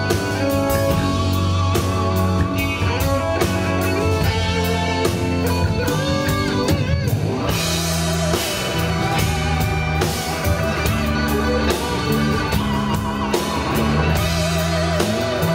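Rock band playing live: electric guitars, bass guitar and drum kit, with a lead guitar line of bent, wavering notes.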